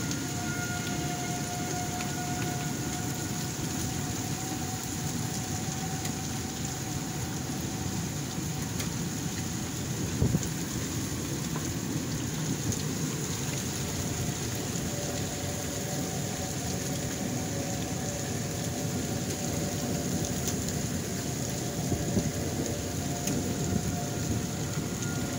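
Thunderstorm with heavy rain and strong wind, a steady rushing noise with a few brief louder hits.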